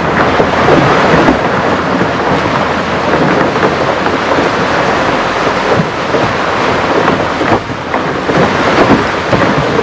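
Tour boat's hull pushing through dense brash ice: a loud, steady crackling rush of ice and water along the hull.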